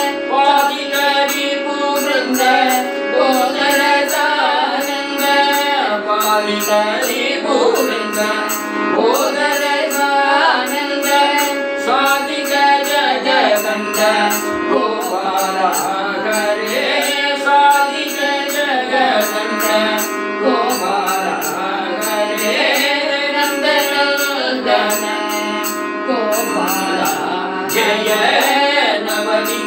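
Male and female voices singing a Carnatic devotional tarangam together over a steady harmonium drone, with small hand cymbals keeping an even beat.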